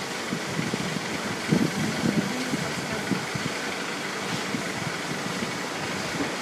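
Bulldozer engine running steadily, with a few dull low knocks about one and a half to two seconds in.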